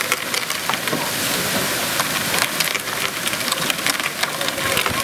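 Hard plastic wheels of children's pedal tractors rolling over gravel and wet paving: a steady crackling hiss dotted with many small clicks and rattles.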